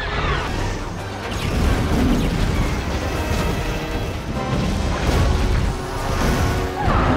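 Space-battle film soundtrack: orchestral score mixed with explosions, deep booms and blaster impacts, with falling swoops of passing starfighters near the start and near the end.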